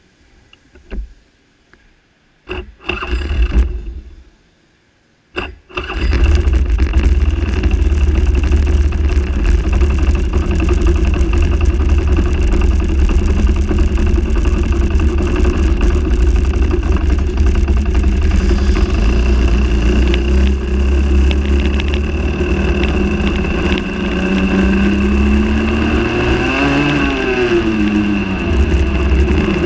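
Rotax Max 125 cc two-stroke kart engine, heard from on board, starting up: a few short bursts, then it catches about six seconds in and runs loudly as the kart pulls away. Its pitch rises and falls near the end.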